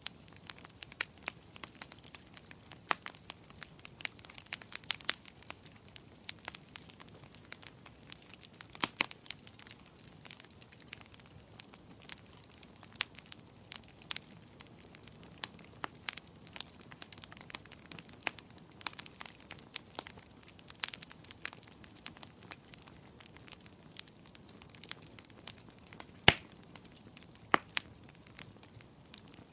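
Wood fire crackling in a fireplace: irregular sharp pops and snaps over a faint steady hiss, with two louder pops near the end.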